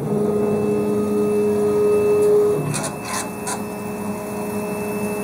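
Laser cutter's belt-driven gantry motor running as the head carriage travels: a steady two-tone hum that shifts in pitch about two and a half seconds in, with a few ticks just after, then a lower hum.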